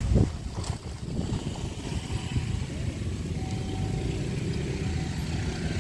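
Diesel locomotive at the head of a passenger train approaching, its engine a steady low rumble slowly growing louder, with a brief thump right at the start.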